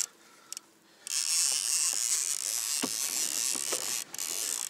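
Fishing reel buzzing steadily for about three and a half seconds, starting about a second in, while a hooked fish is on the line, with a few light knocks from the rod and reel.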